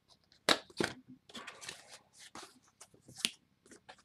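Cardboard box being handled and its inner box slid out of the outer sleeve. Two sharp knocks come about half a second in, then cardboard scraping and rustling, and another sharp knock a little after three seconds.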